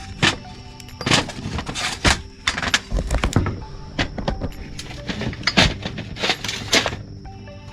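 Repeated clattering and scraping as the plastic throttle-handle parts and cable of a string trimmer are handled during disassembly, a noise every half second to a second.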